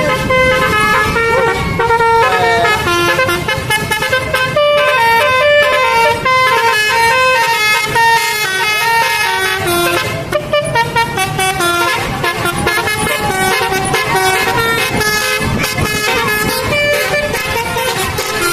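Bus telolet horn, a Basuri-type electric multi-trumpet air horn, playing a quick tune of stepping notes, with a short break about ten seconds in.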